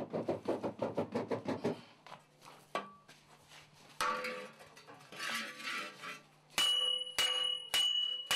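Hand-worked pot bellows pumped fast at a charcoal forge fire, about six strokes a second, stopping about two seconds in. Near the end, four ringing hammer blows on hot iron over a stone anvil, a little over half a second apart.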